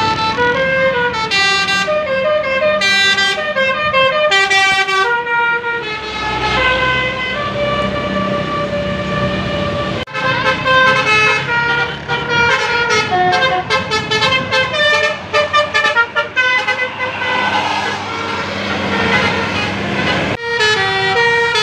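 Bus 'telolet' horns of the Basuri type playing quick multi-note melodies, the notes stepping up and down, over the low running of bus engines. The horn melodies break off sharply about ten seconds in and again near the end, then start up again.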